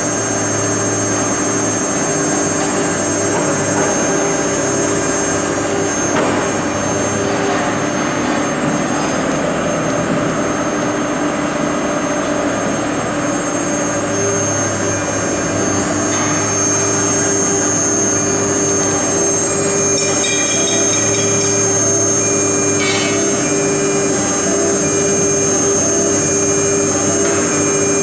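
1.5 kW CNC router spindle motor running at speed with a steady whine, as the machine engraves a double-color plastic board. A few short scratchy sounds come a little past two-thirds of the way in.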